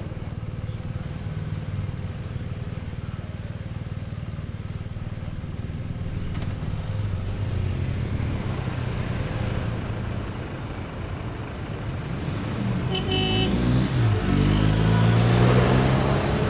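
Motor vehicle engines running steadily at low speed. About twelve seconds in, louder engines, including a pickup truck's and tractors', come closer, and there is a short horn toot about a second later.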